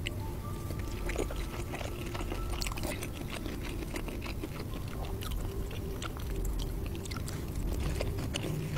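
Close-miked mukbang eating: a man chewing soft dim sum dumplings, with many small wet clicks and smacks of the mouth.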